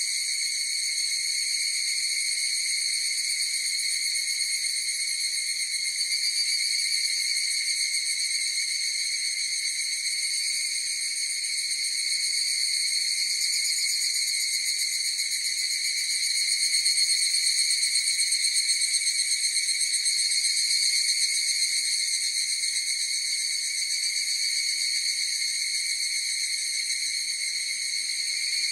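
A chorus of higurashi (evening cicadas, Tanna japonensis) calling, a steady high ringing that swells slightly a little past halfway.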